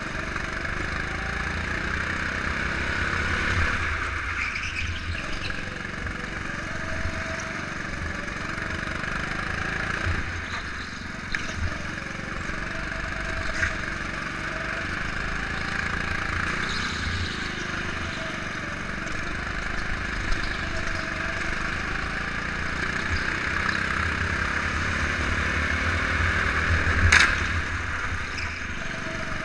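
Go-kart's small engine running continuously under way on a lap, heard from on board the kart. A single sharp knock near the end.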